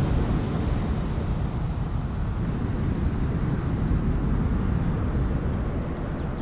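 A steady deep rumbling noise that slowly fades. Near the end a quick run of short, high chirps, about four a second, joins it.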